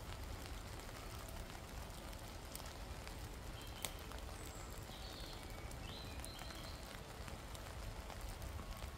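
Light rain pattering on a tarp overhead: a faint, steady hiss with scattered sharper drop ticks, one louder tick about four seconds in.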